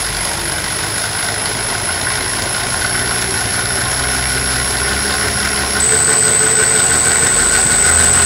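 Marksman Smart Pump running as it fills a barrel: a steady motor hum with a thin high whine. A little past halfway the sound steps up louder and the whine drops to a lower pitch.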